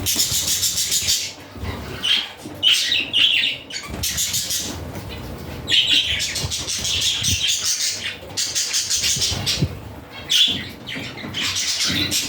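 Budgerigars chattering and chirping: bursts of fast warbling calls and squawks that keep coming with short pauses between them, with a few flutters of wings.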